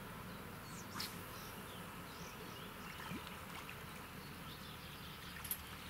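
Insects buzzing faintly and steadily in the open air, with a short click about a second in and another near the end.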